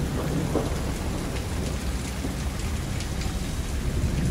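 Heavy rain from a severe thunderstorm, a steady wash of noise with a low rumble underneath.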